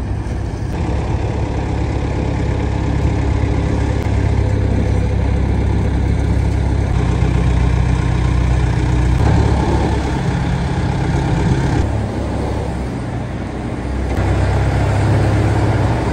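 Heavy truck's diesel engine running at low revs, loud and steady, with the level and tone changing abruptly several times.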